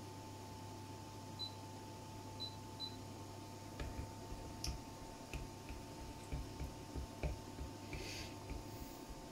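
A spoon clicking and tapping against a glass bowl as chunks of chocolate are stirred while melting over a water bath, irregular light clicks a couple of times a second starting about four seconds in. A steady low hum runs underneath.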